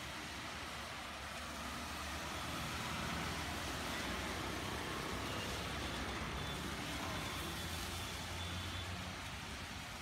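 Road traffic on a rain-soaked street: auto-rickshaw, scooter and car engines and the hiss of wet tyres, over steady falling rain. It grows a little louder a few seconds in as vehicles pass close.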